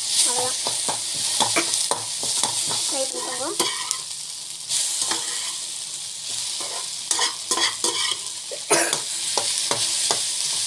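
Sliced okra sizzling as it is stir-fried in hot oil in a pan, with a spatula scraping and knocking against the pan at irregular intervals over a steady frying hiss.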